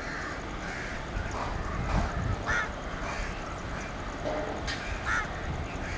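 Low, steady rumble of an approaching WAG-7 electric freight locomotive, with a bird calling twice in short harsh calls, about two and a half seconds apart.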